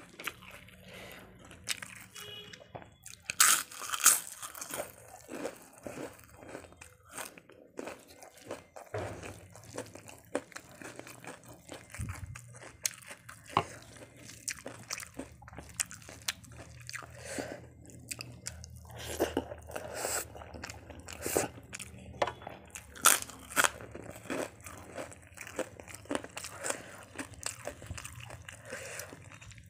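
Crisp fried papad crunching as it is crushed and bitten, with the loudest crunches a few seconds in. This is followed by a long run of softer clicks and wet smacks as fingers mix rice and dal on a metal plate, with a few sharper crunches later.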